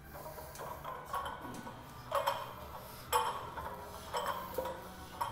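Weight plates on a loaded barbell clinking against the sleeves with each rep of a heavy incline bench press, a short ringing metal clink about once a second.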